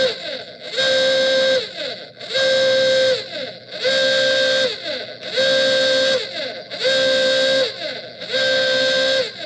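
A loud pitched tone with several overtones, repeated in a loop: about eight blasts of under a second each, roughly one a second, with short falling slides between them.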